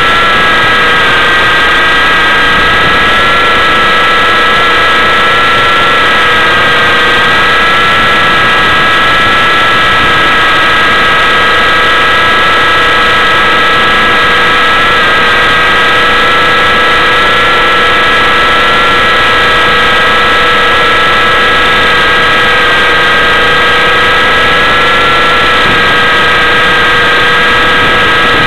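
Align T-Rex 600 radio-controlled helicopter in flight, heard from a camera mounted on the airframe: a loud, steady whine from its drivetrain and rotors, with several high tones that waver slightly as the power changes, over a noisy rush.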